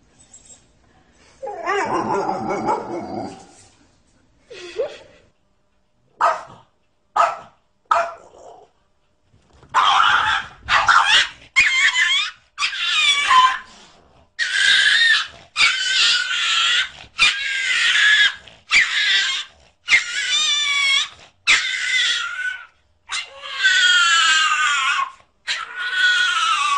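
A dog vocalising: first a low growl, then a few short yips, then a long run of high, wavering whines or yelps, about one a second.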